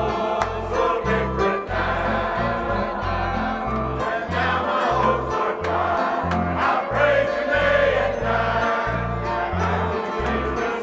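Church choir singing a gospel hymn together, mixed men's and women's voices, over instrumental accompaniment with a bass that steps from note to note in a steady beat.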